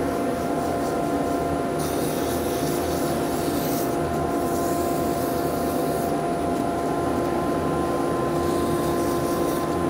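Wood lathe and dust extractor running with a steady hum, while 400-grit abrasive is held against the spinning wooden bottle stopper. The sanding hiss is strongest from about two seconds in to about six seconds in.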